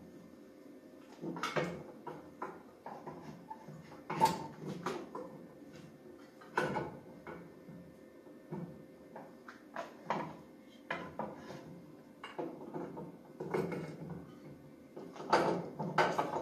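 Irregular metallic clinks, taps and clatter of hand tools and small engine parts being handled on a workbench during engine reassembly, with the sharpest clank about four seconds in and a busier run of knocks near the end.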